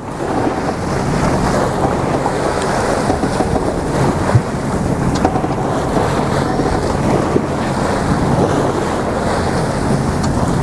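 Wind buffeting the microphone and sea water rushing along the hull of a sailing yacht under way, a steady loud rush with a low hum beneath it.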